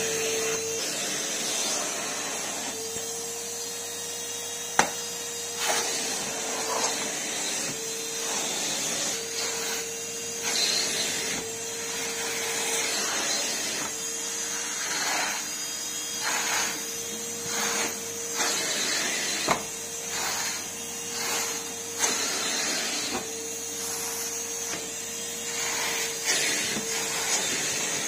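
Numatic Henry cylinder vacuum cleaner running with a steady motor whine and rushing air, its wand nozzle worked over sofa upholstery. Occasional sharp knocks and short swells in loudness come as the nozzle moves against the fabric.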